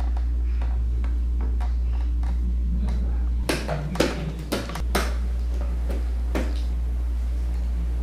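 A steady low hum with scattered light clicks and knocks from a plastic ride-on toy being handled, with a burst of sharper knocks around the middle.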